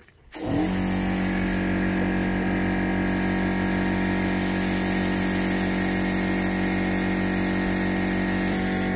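An air compressor motor starts about half a second in and runs steadily with a hum full of overtones, under the hiss of air and paint from a budget Clarke gravity-feed spray gun being sprayed.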